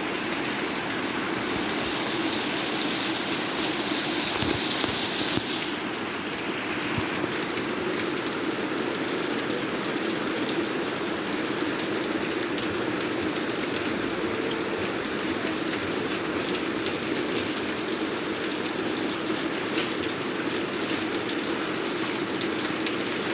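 Steady rain falling and pattering on surfaces, with many small drop ticks. A higher hiss sits over it for the first several seconds.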